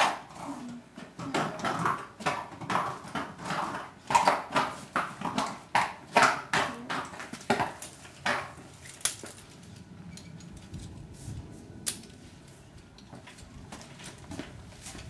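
A horse's hooves knocking on the concrete floor of a barn aisle as it is led and turned, an uneven run of steps about two a second with light clinks, then quieter with a single sharp click near the end.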